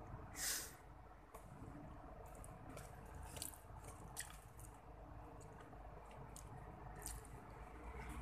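A person eating, faintly heard: soft, wet chewing with scattered small clicks and smacks of the mouth, irregularly spaced.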